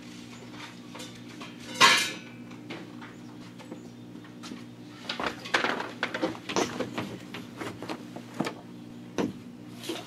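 Metal tools clinking and clattering as they are handled and set down: a loud clank about two seconds in, then a run of clinks around the middle, over a steady low hum.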